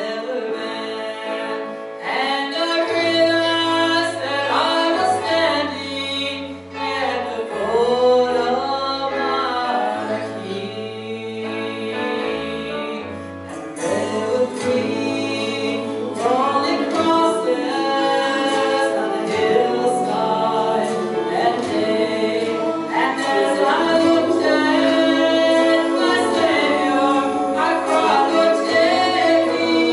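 Mixed gospel quartet, one man and three women, singing in harmony over an instrumental accompaniment with a sustained bass line.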